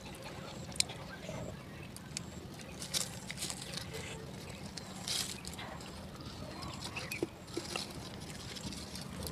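Eating sounds: chewing and lip smacks with scattered sharp clicks, and fingers picking through fried fish, rice and noodles on a banana leaf.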